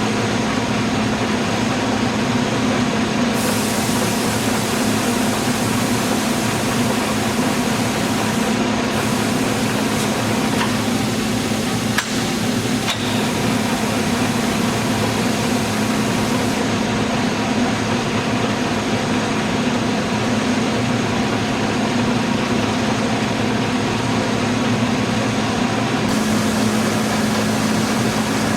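LeBlond Dual Drive engine lathe running under power: a steady mechanical hum with a higher hiss that comes and goes, and a single click about twelve seconds in.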